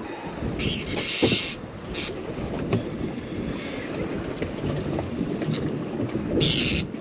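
Wind buffeting the microphone aboard a small boat at sea, over a steady low rumble of water. There are short bursts of high hiss about a second in and again just before the end, and a few light knocks.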